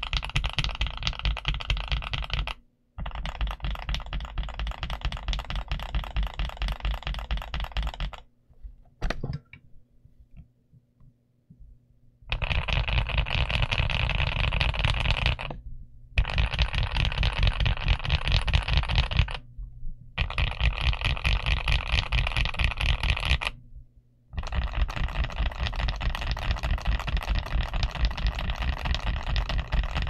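Fast typing on a GMK67S mechanical keyboard with Gateron Ultra Glory Pro Yellow switches and Womier double-shot PBT keycaps. The keystrokes come in dense runs of several seconds with short pauses between them, and one longer pause of about four seconds with a few stray clicks about a third of the way in.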